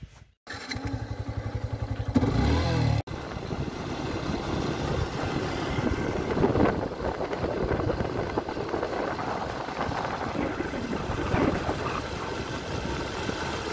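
Motorcycle engine idling, then revved up about two seconds in. After a sudden cut, the motorcycle is heard underway at a steady speed, its engine running beneath a steady rushing noise.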